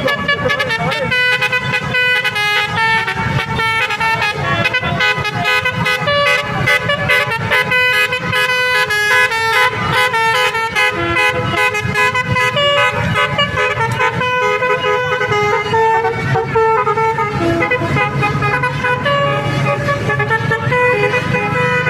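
Basuri 'telolet' musical horn playing a tune in quick stepped notes, several pitched tones sounding together.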